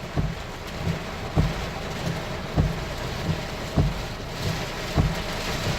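Heavy rain beating on a car as it drives, with a short knock repeating evenly a little less than once a second.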